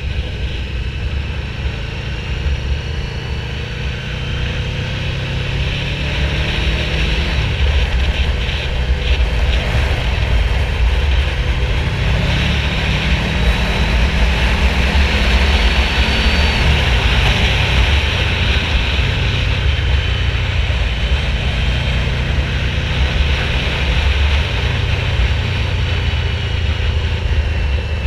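Yamaha VMAX 1700's V4 engine running under way, with steady wind rush; the engine note rises and falls as the speed changes, and it gets louder several seconds in.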